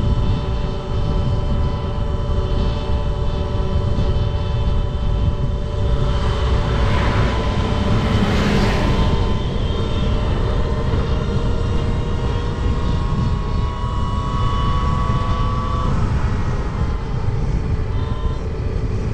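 An 11,000 W electric motorcycle's motor whines steadily under load while climbing a hill at speed, with heavy wind rumble on the microphone. The whine rises slightly in pitch past the middle and then drops away, and there is a swell of rushing noise a few seconds in.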